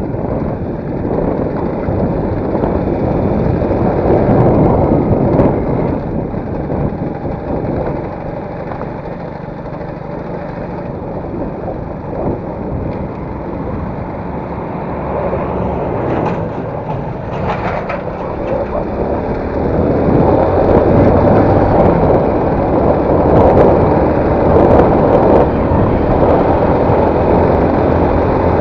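A motor vehicle running, a steady mix of engine and road noise that gets louder about 20 seconds in.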